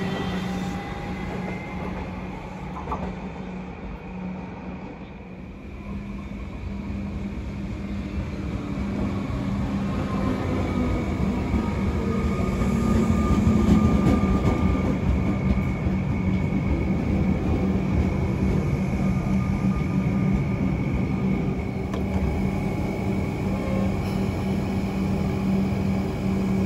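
Comeng electric suburban train pulling into the platform and braking to a stop, its motor whine falling in pitch. The train is loudest about halfway through as the cars draw alongside, then stands with a steady hum.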